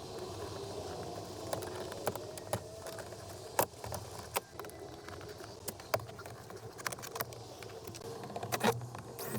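Scattered clicks, taps and light knocks of hand work on a car door, with panel, clips and tools being handled, the sharpest about a third of the way in, in the middle and near the end, over a steady low background hum.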